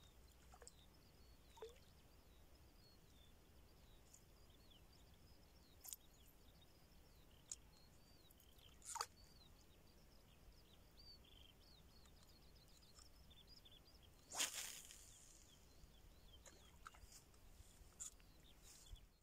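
Near silence of quiet open water, with faint small birds chirping throughout and a few soft clicks. About fourteen seconds in comes one brief rush of noise, the loudest sound here, fading over about a second.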